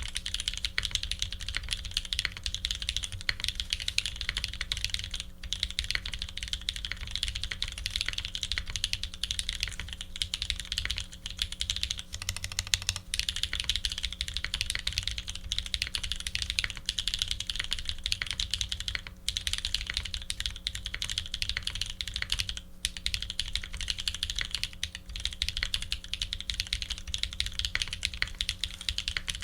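Fast, continuous typing on an F1-8X custom mechanical keyboard fitted with lubed New Holy Panda tactile switches, an aluminium plate and Leopold PBT keycaps: a dense stream of keystroke clacks with a few brief pauses. A faint steady hum runs underneath.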